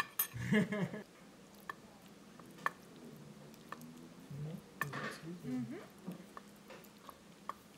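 A wooden spoon spreads soft cooked eggplant and onion around a ceramic baking dish, with a few sharp clicks of spoon against dish. A faint voice murmurs in the background, loudest about half a second in and again around five seconds.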